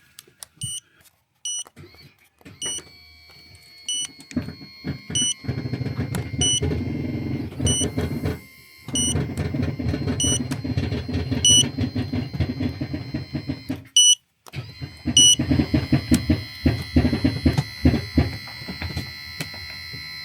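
A motorhome's electric levelling jacks raising the van: the jack motor runs with a steady whine, stopping briefly twice, while the control beeps repeatedly about once a second.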